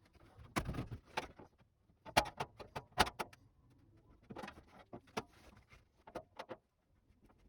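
Irregular knocks, clicks and light clatter of parts or tools being handled, coming in several short clusters with quiet gaps between them.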